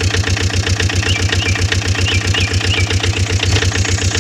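Small truck's diesel engine running steadily with a fast, even chugging.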